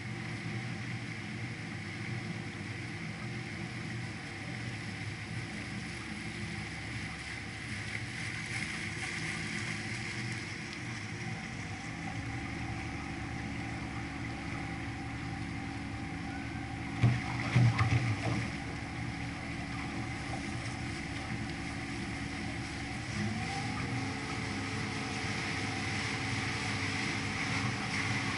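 Canal tour boat under way: its engine runs steadily along with the rush of water and air, with a short cluster of loud knocks about two-thirds of the way through. The engine note shifts slightly near the end.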